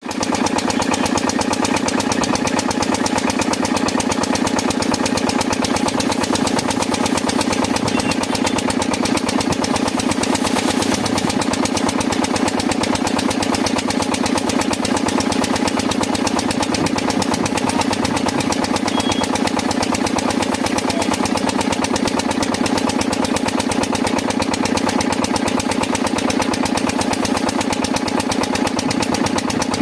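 Washing machine running: a steady, fast, even rattle over a steady hum, with no let-up.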